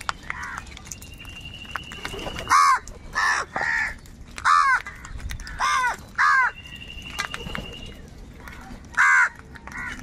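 House crows cawing: about eight loud, harsh caws, some single and some in quick pairs, with a lull of a couple of seconds before one last caw near the end.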